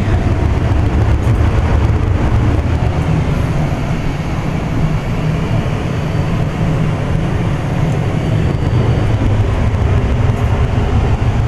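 Heat pump air handler's indoor blower running steadily, a loud, even rumble of air moving through the unit and its ductwork.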